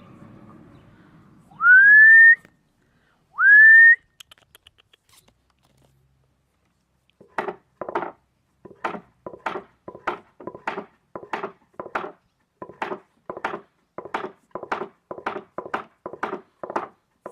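A person whistles twice, each a short, loud whistle sliding upward. Then comes a steady run of short, clicking sounds, about three a second.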